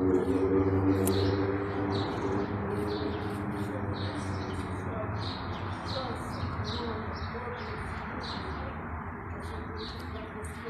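Small birds chirping in quick, repeated short notes, over a steady background hum. A low held sound of several pitches sits underneath and is loudest in the first couple of seconds.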